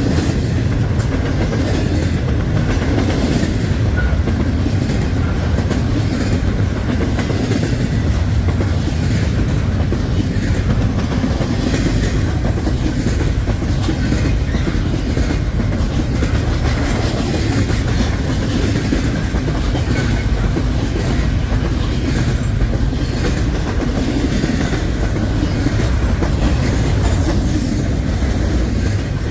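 Railroad cars rolling steadily past: a continuous low rumble with wheels clicking over the rail joints.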